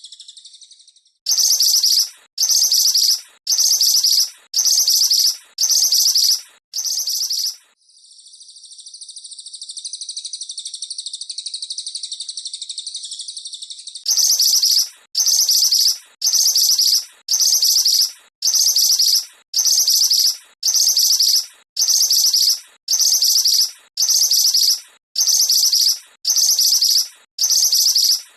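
Small songbird's high, rapid chattering call, repeated in short bursts about one and a half times a second, broken in the middle by a long continuous buzzy trill lasting about six seconds.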